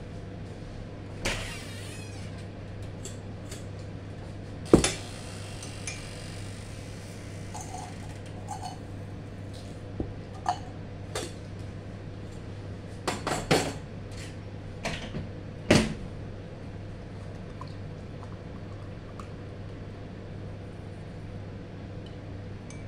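Kitchen clatter: a dozen or so short knocks and clicks of things being handled and set down, the sharpest about five seconds in, a cluster around thirteen seconds and another sharp one near sixteen, over a steady low hum.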